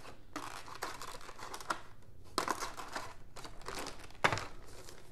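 Clear plastic packaging bag crinkling in several short bursts as it is handled, with the rustle of a small cardboard box and one sharp knock a little past four seconds in.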